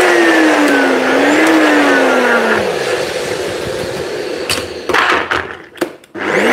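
Nutribullet personal blender motor whirring, its pitch wavering and then winding down about two and a half seconds in; the cauliflower isn't blending, and it does 'nothing'. Knocks and clicks as the cup is lifted off and shaken, then the motor starts again at the very end.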